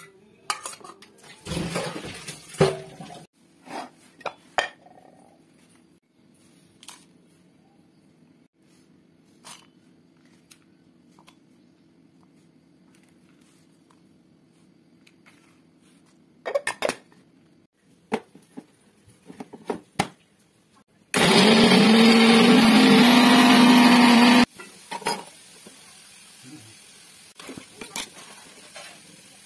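Steel bowls and utensils clinking and clattering, then a mixer grinder running steadily for about three seconds, grinding a thick masala paste in its steel jar, and stopping abruptly.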